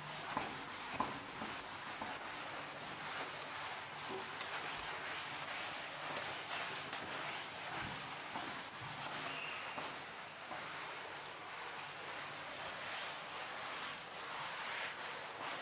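A cloth wiping a chalkboard: continuous rubbing strokes as the chalk writing is erased.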